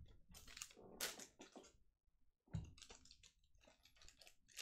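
Faint scattered clicks and rustles of trading cards and foil packs being handled and flipped through.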